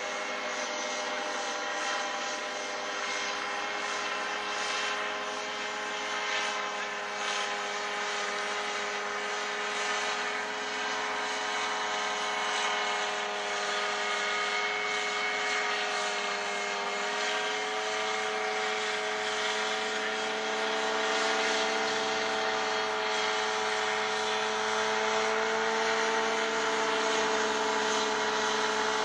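Parasport Fun-Alu 125 paramotor's two-stroke engine and propeller droning steadily in flight. The pitch shifts a little about two-thirds of the way through, and the sound grows gradually louder toward the end.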